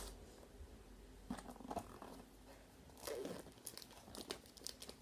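Packaging being cut and pulled open by hand: crinkling and tearing, with scattered small crackles and a couple of louder rustles about a second and a half and three seconds in.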